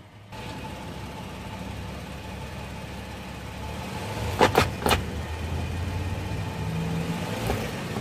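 Toyota 4Runner engine running as the truck creeps forward on a concrete driveway. About four and a half seconds in, two or three sharp clicks are heard as a tyre rolls over a flashlight lying on the concrete.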